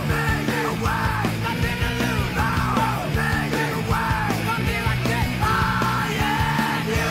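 Rock music with a lead vocal over a dense full-band backing, playing continuously.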